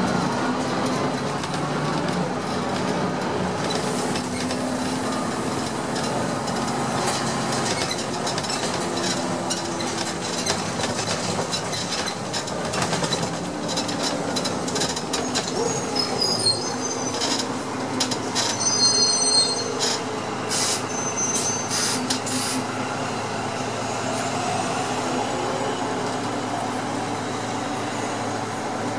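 Heuliez GX 417 articulated bus heard from a passenger seat inside while riding: the engine runs and changes pitch with the gears over steady road rumble. In the middle there are several high squeals, the loudest a little before the bus slows to a stop near the end.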